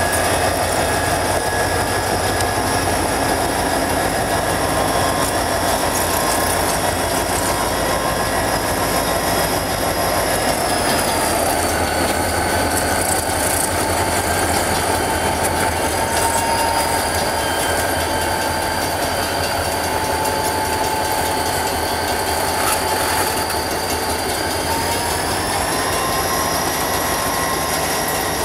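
Covered hopper cars of a freight train creeping through a crossing, their steel wheels squealing in sustained high tones that slide down in pitch about eleven seconds in and climb back up near the end, over a steady low hum.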